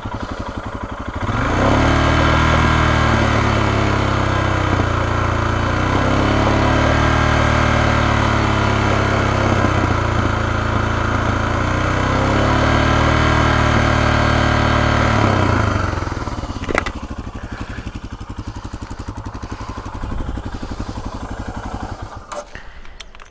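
Royal Enfield Himalayan's single-cylinder engine through a Devil Evo slip-on exhaust, rising from idle about a second in to steady mid-range revs held for some fourteen seconds, then dropping back to idle.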